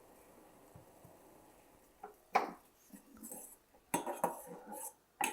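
Cooking pot and utensils clinking and knocking: a run of short sharp clinks starting about two seconds in, as the pot of boiled cough syrup is handled after the gas stove is turned off.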